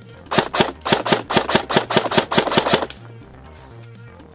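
Airsoft gun firing a rapid string of about fifteen sharp shots over two and a half seconds, a little unevenly spaced, then stopping about three seconds in.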